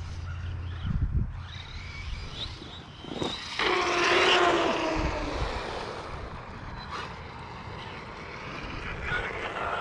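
Electric motor and drivetrain whine of a Losi Lasernut RC buggy running on a 4S battery. The whine jumps in suddenly about three and a half seconds in and falls in pitch over the next two seconds as the throttle comes off. It climbs again near the end as the buggy is driven back up to speed.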